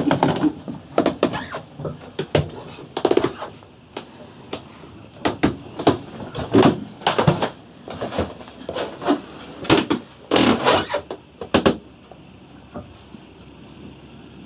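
Irregular knocks, bumps and rustles of someone moving about inside a small wooden boat cabin and handling the camera, dying away about twelve seconds in.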